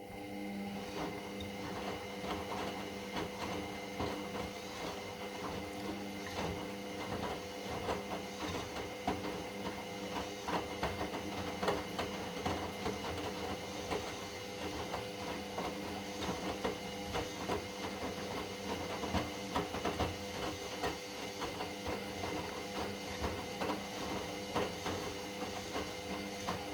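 Indesit EWD71452 washing machine's drum turning during the wash. The motor starts up just as the sound begins and runs with a steady whine, mixed with irregular clicks and knocks from the wet load tumbling.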